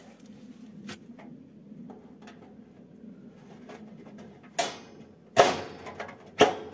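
Three sharp knocks of rabbit-cage parts being fitted and pushed together during assembly, the loudest about a second apart near the end, with a few light clicks before them.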